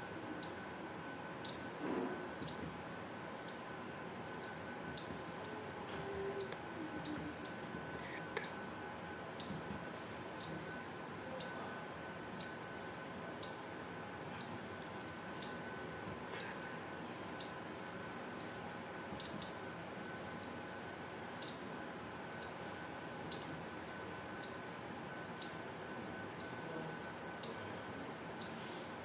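Honeywell fire alarm panel's buzzer sounding a high-pitched electronic beep about a second long, over and over, about every one and a half seconds. The last few beeps are louder.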